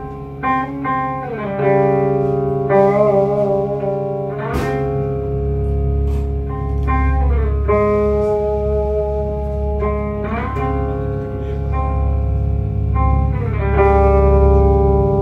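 Amplified electric guitar played solo: slow, sustained clean chords that ring out and change every two to three seconds, sliding in pitch into each new chord, over a low steady hum.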